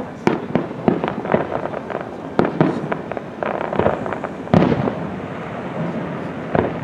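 Fireworks finale barrage: aerial shells bursting in quick succession, with many small pops and crackles between louder bangs that come about every two seconds.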